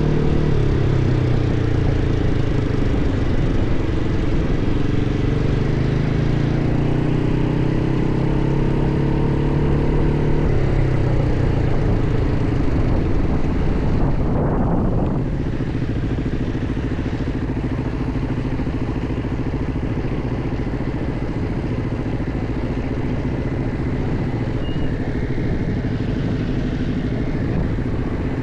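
ATV engine running under way on a dirt track, its pitch falling and rising with the throttle. About halfway through there is a short rising sweep, after which the engine settles lower and runs a little quieter.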